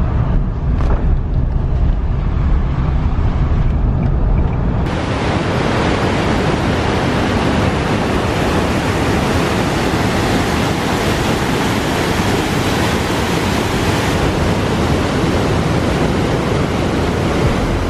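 Car driving through a road tunnel, a dense low rumble of engine and tyres. About five seconds in it cuts to a mountain river rushing over boulders and through a narrow rock gorge, a loud, steady hiss of white water.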